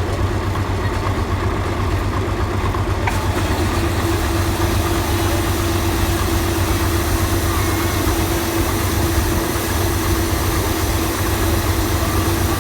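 Combine harvester running steadily while harvesting wheat, a constant low engine drone with a steady whine joining about three and a half seconds in.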